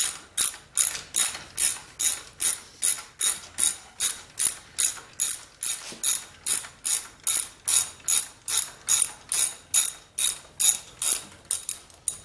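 Hand ratchet wrench clicking in an even rhythm, about two to three clicks a second, as a starter mounting bolt on a Briggs & Stratton engine is backed out.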